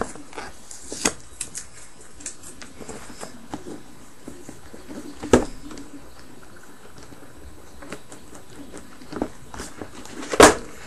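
Cardboard product box handled and opened by hand: scattered light scrapes, rustles and taps, with two sharper knocks, one about five seconds in and one near the end.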